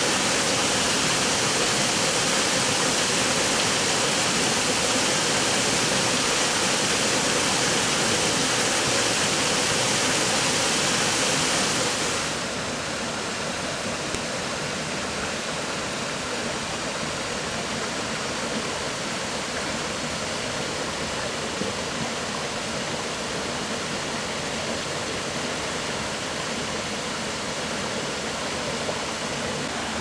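Steady rush of water from a mountain waterfall and creek. About twelve seconds in it drops to a quieter, duller rush.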